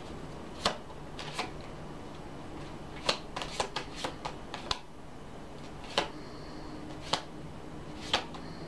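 Tarot cards being shuffled and handled: a series of sharp card slaps and taps, with a quick cluster of them between about three and five seconds in.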